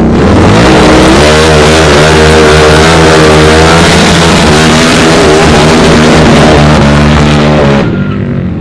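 Harley-Davidson Night Rod's V-twin engine held at high, fairly steady revs, very loud with a heavy hiss over it, then dropping away abruptly near the end.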